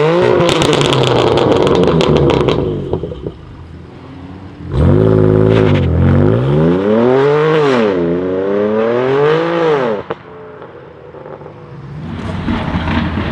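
BMW M3 F80's twin-turbo straight-six through a full titanium iPE exhaust, driven at full throttle twice. The first run lasts about two and a half seconds with a rapid crackle over it; after a short lull a second run of about five seconds swings the revs up and down several times before the throttle is lifted, and the engine picks up again near the end.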